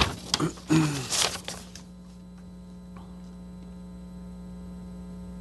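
Sheets of paper rustling and being shuffled close to a desk microphone for about the first two seconds, then a steady electrical hum.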